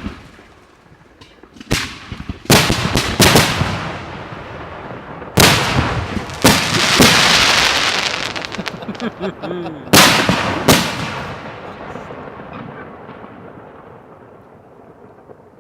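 Large aerial fireworks shells launching and bursting. Sharp bangs come in a quick run over the first few seconds, then a long crackling hiss, two more loud bangs about ten seconds in, and a rumble that dies away slowly.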